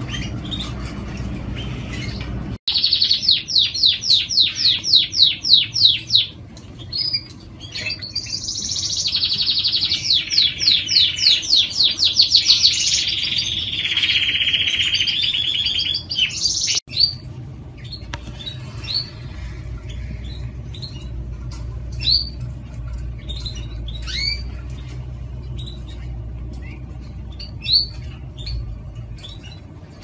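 Frilled canary singing loud, fast repeated trills and rolling runs of song, starting abruptly about two and a half seconds in; from about 17 seconds in only scattered short chirps remain.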